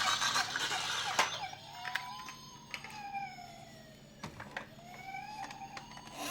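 A toy ambulance minicar's electronic siren wailing, slowly rising and falling in pitch. Several sharp clicks sound over it, and there is a rushing noise in the first second.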